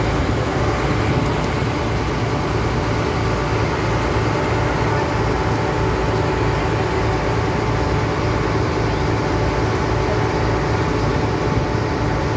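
River ferry's engine running steadily: a constant low drone with a steady hum, unchanging in pitch or loudness.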